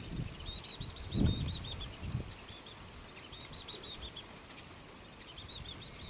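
Baya weavers chattering: three runs of quick, high, squeaky chirps. A few low thumps, the loudest about a second in, sound under them.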